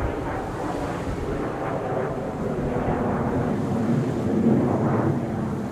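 Jet noise from Kawasaki T-4 jet trainers flying overhead, their twin turbofan engines making a steady noise that grows louder about four seconds in.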